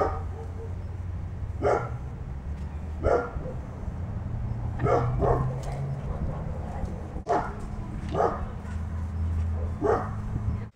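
A dog barking repeatedly, about eight single barks at irregular intervals, over a steady low rumble.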